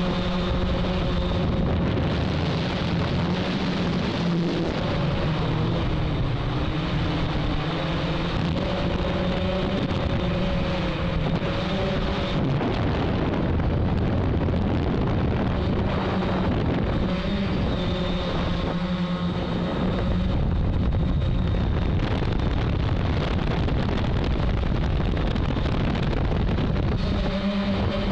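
Hexacopter's electric motors and propellers whining steadily, the pitch shifting a little as it manoeuvres, with wind rushing over the onboard microphone.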